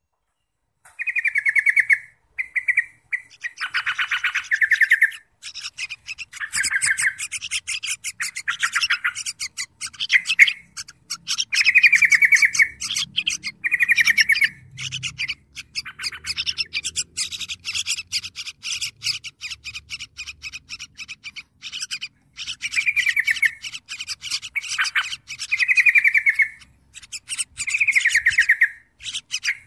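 Yellow-vented bulbuls at the nest calling while the nestlings are fed. A rapid high chattering runs on, with short buzzy notes repeated every second or two. It starts about a second in.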